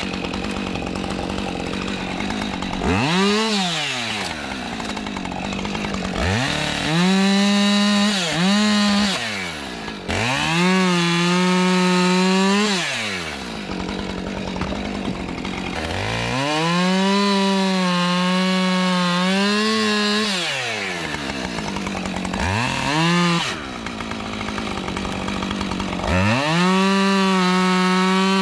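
Husqvarna 545 50cc two-stroke chainsaw bucking firewood. It revs up to full throttle again and again, holds a steady pitch under load through each cut, then drops back to idle, about five times over.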